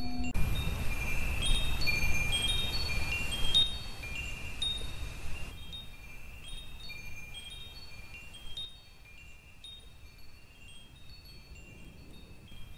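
Wind chimes tinkling: short, ringing high notes at scattered pitches, over a low rumble that drops away about five and a half seconds in. The whole sound gradually fades.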